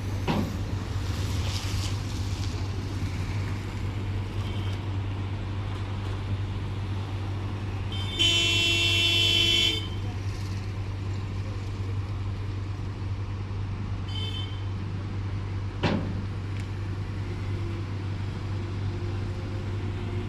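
Steady low engine drone of road traffic, with a vehicle horn honking loudly for about a second and a half near the middle and a short, fainter toot a few seconds later. Two brief knocks stand out, one at the start and one near the end.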